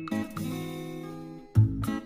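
Background music with plucked, guitar-like notes. A louder passage with a strong bass line comes in about one and a half seconds in.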